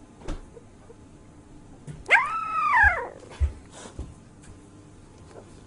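A sleeping dog gives one high whimper, about two seconds in, that rises and then falls in pitch over just under a second, followed by a couple of soft thumps.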